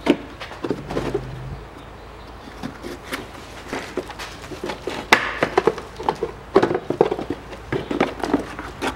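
The plastic wheel-arch liner of a Smart Fortwo 451 is being pulled and flexed out of the rear wheel arch: a run of irregular clicks, cracks and scrapes as it comes away from its mounts. The cracks grow denser and louder in the second half.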